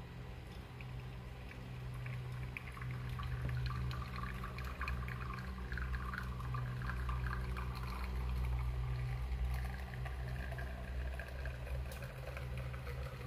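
Espresso trickling from two Flair manual lever espresso presses into glass shot glasses as both are pressed at once, over a steady low hum.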